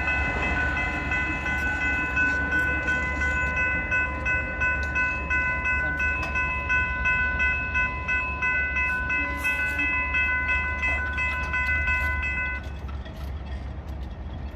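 Railroad grade-crossing warning bell ringing in an even, repeating rhythm while the crossing gates rise, stopping near the end once the gates are up. A steady low rumble runs underneath.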